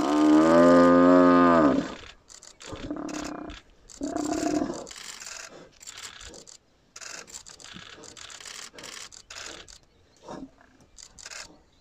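Cape buffalo bull bellowing in distress while lions drag at it: one long, loud moan whose pitch drops at the end, then two shorter, quieter calls and scattered short noises.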